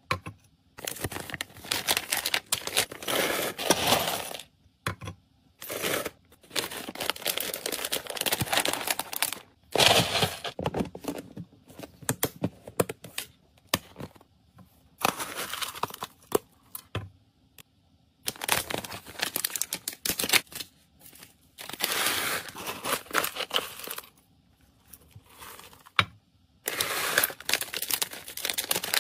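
Close-up handling sounds of packing dry pet food: kibble rattling against a glass bowl as it is scooped and poured, clicks from a plastic storage container's lid, and plastic bags crinkling. These come in short bursts with brief quiet gaps between them.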